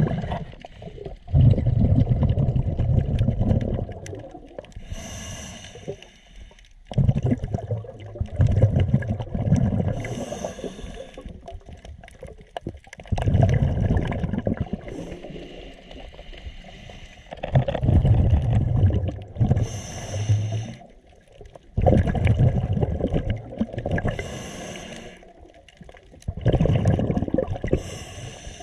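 Scuba diver breathing through a regulator underwater: a bubbling rush of exhaled air every four to five seconds, with a short hiss between the bursts as the diver inhales.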